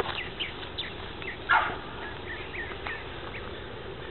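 Short, high animal chirps and squeaks over a steady hiss, with one louder call about a second and a half in.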